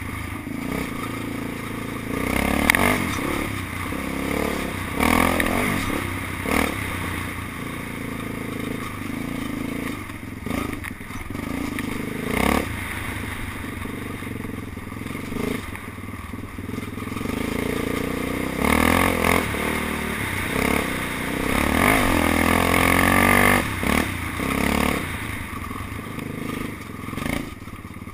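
Yamaha Raptor 660R quad's single-cylinder four-stroke engine under way, its pitch rising and falling as the throttle is worked on and off, with scattered knocks and rattles.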